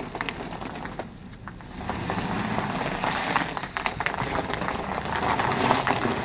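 2002 GMC Sierra C3 pickup's V8 running as the truck turns on an icy lot, getting louder about two seconds in, with its tyres crackling and crunching over ice and packed snow.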